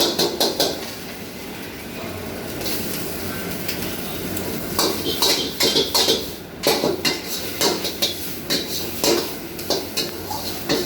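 Metal cooking utensil clanking and scraping against a pan while noodles are stir-fried and tossed: a few knocks at the start, then a quieter spell, then rapid irregular clanks from about halfway on.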